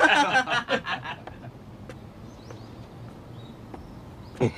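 A man's voice speaking for about the first second, then a lull of low background with a few faint high chirps, then voices again near the end.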